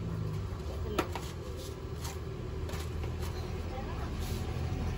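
A vehicle engine idling with a low steady hum, and a single sharp click about a second in.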